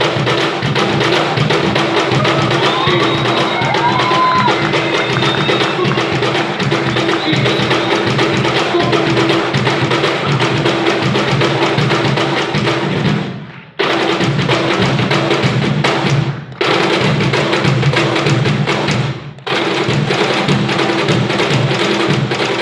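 Peruvian cajón drumming in a fast, dense rhythm of wooden strokes. The playing stops short three times in the second half, each time picking up again at once.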